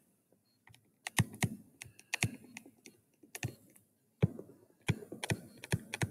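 Stylus tapping and scratching on a tablet screen during handwriting, heard as a run of irregular clicks and taps.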